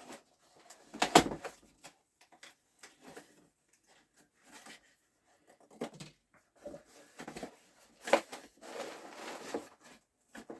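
A cardboard shipping box and its packing being opened and handled by hand: scattered knocks and rustles, with a sharp knock about a second in and a denser stretch of rustling near the end.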